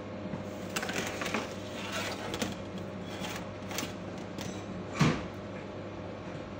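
Steady low machinery hum of a ship underway, with a run of light clicks and rattles and one sharper knock about five seconds in.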